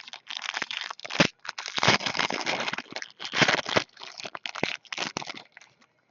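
Trading card pack's foil wrapper crinkling and tearing as the pack is opened and its cards handled, in a run of short, uneven rustles.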